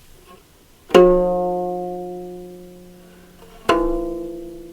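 Two single notes plucked on a string instrument from Ethiopia, one about a second in and one near the end, each ringing on and fading away slowly.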